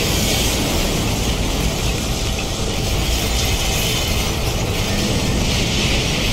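Large fuel fire engulfing a car at a gas pump, burning with a loud, steady rushing noise.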